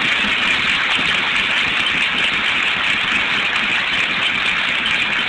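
Audience applauding, a dense, steady clapping heard on an old recording with a narrow sound range.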